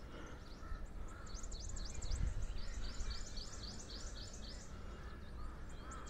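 Small birds chirping, a quick run of short high descending calls repeated several times a second, over a low rumble of wind on the microphone.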